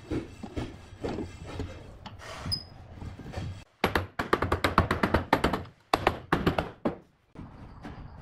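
Knocks and taps on wood from woodworking hand work. Irregular knocks come first, then after an abrupt cut there are runs of rapid tapping, several strikes a second, that stop suddenly.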